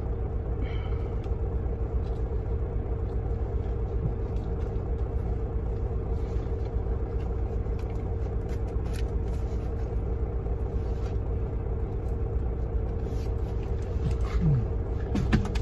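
Truck's diesel engine idling, a steady low rumble with a constant hum, heard from inside the cab. A few faint clicks of handling come near the end.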